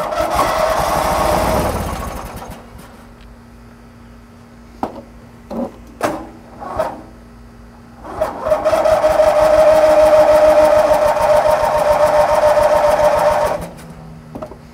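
Riding mower's 18 hp Briggs & Stratton twin-cylinder engine being cranked by its electric starter twice, briefly and then for about five seconds, with a steady whine and a few clicks between the tries. The engine turns over but never fires, which the owner puts down to too little compression or bad fuel.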